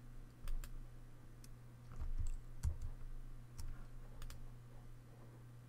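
Scattered sharp clicks of a computer mouse and keyboard, about eight or ten spread unevenly, over a faint steady low hum.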